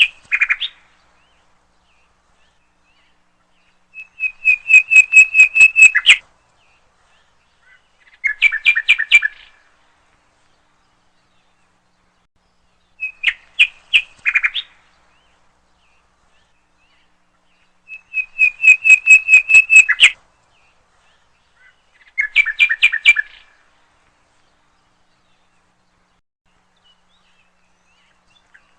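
A songbird sings five separate phrases with silent pauses between them. Each phrase is a quick run of repeated whistled notes lasting about two seconds, and the phrases alternate between a higher steady run and a lower, buzzier one.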